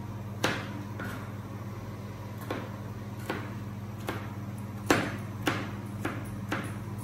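Chef's knife chopping garlic on a plastic cutting board: about nine sharp knocks of the blade against the board at an uneven pace, over a steady low hum.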